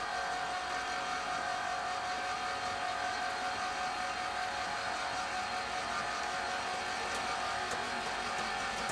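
Posch PackFix firewood bundling machine running, a steady motor whine with a constant hum as the drum lifts off the pallet of split logs and the film wraps the bundle.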